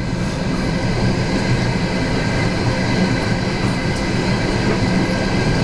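Steady running noise of a moving train carriage, its wheels rolling on the rails, heard from inside the carriage.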